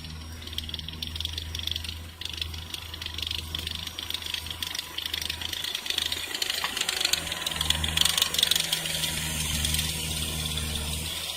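Caterpillar 247 tracked skid steer's diesel engine running steadily under a dense metallic rattle and clatter, which is loudest about eight seconds in.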